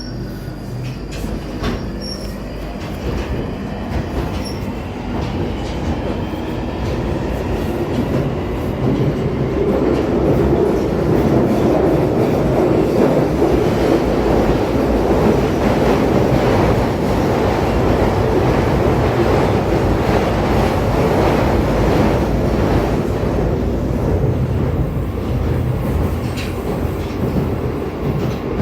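London Underground Northern line 1995 Stock train, heard from inside the carriage as it pulls away: a rising motor whine in the first few seconds. It then runs through the tunnel with loud, steady rumbling and wheel noise that builds over about ten seconds and eases slightly near the end.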